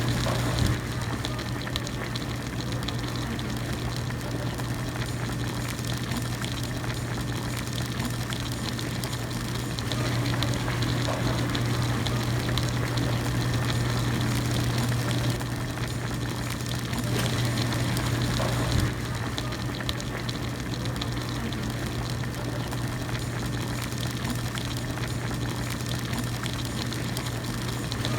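Pot of hot pot broth boiling steadily, a continuous bubbling hiss over a constant low hum, with a faint click or two.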